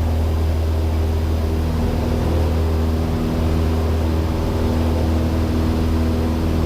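Cessna 172 Skyhawk's engine and propeller running at full takeoff power, a steady drone with no change in pitch.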